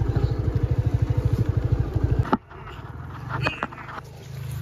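Hero scooter's single-cylinder engine running with a rapid, even putter, which stops abruptly a little over two seconds in. A quieter low hum follows, with a few clicks.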